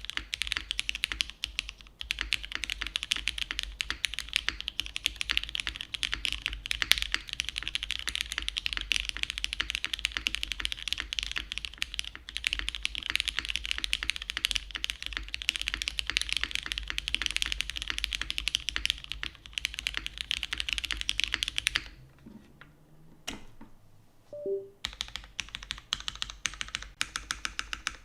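Fast typing on a custom mechanical keyboard with lubed Hyperglide linear switches, a carbon fibre plate and GMK keycaps in a Matrix 8xv3.0 case: a dense, rapid run of keystrokes. About three-quarters of the way through the typing stops for roughly three seconds, leaving only a few single key presses, then the fast typing starts again.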